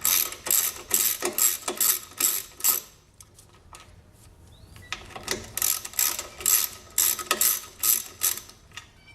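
Socket ratchet wrench clicking as it backs out 1/2-inch bolts, about three to four clicks a second, in two runs with a pause of about two seconds between them, one run per bolt.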